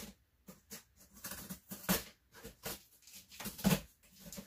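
A cardboard shipping box being handled and opened: irregular scrapes, rustles and taps of cardboard and packing tape, the loudest knock about three and a half seconds in.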